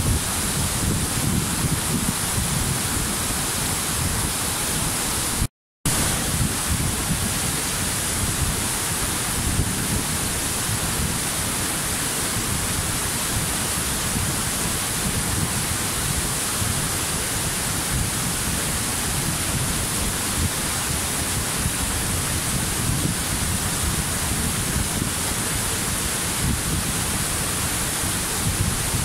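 Waterfall: a steady rush of falling water, cut off by a brief dropout to silence about five and a half seconds in.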